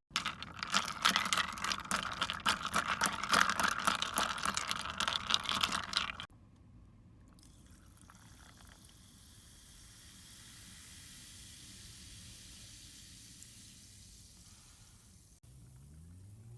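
Food sizzling in a hot pan: a loud, dense crackle of tiny pops for about six seconds that cuts off abruptly, followed by a much quieter steady hiss.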